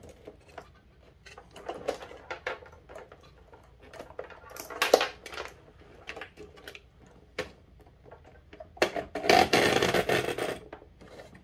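Hands handling bundles of wire pigtails and a plastic electronics enclosure: scattered rustles, light clicks and knocks. Near the end comes a louder stretch of rubbing and scraping lasting about two seconds, as the controller-board panel is pushed down into the plastic box.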